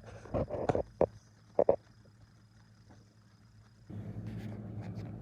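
Several short, sharp sound effects, then a low rumble lasting about a second and a half near the end.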